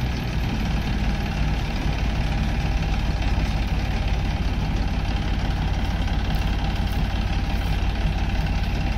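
Massey Ferguson 9500 tractor running with its KS straw reaper driven empty, without straw, to check for a noise the machine had made: a steady mechanical running with a fast low pulsing.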